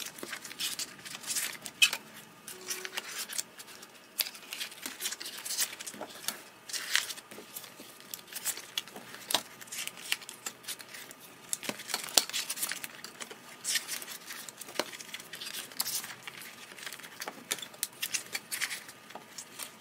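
Metal nail stamping plates in their plastic packaging being handled and slid into the slots of a storage pouch: a steady run of crinkles, rustles and light clicks.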